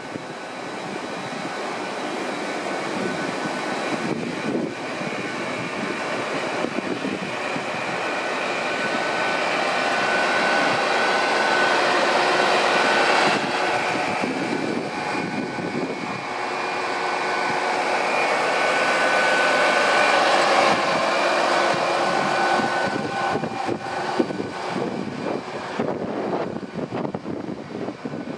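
Hitachi Class 800 bi-mode train running slowly past on its underfloor diesel engines: a steady engine drone with a whine on top over the rumble of the wheels. It swells twice as powered cars come alongside, loudest about twelve and twenty seconds in.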